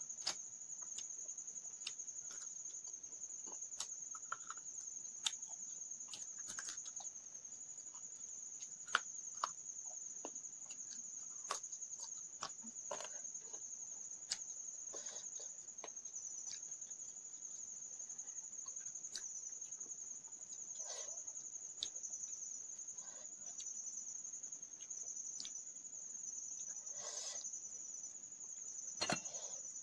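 Close-up hand-eating sounds: fingers working through rice and fried fish, and soft chewing and mouth noises, heard as scattered sharp clicks. Under them runs a steady high insect trill, like a cricket.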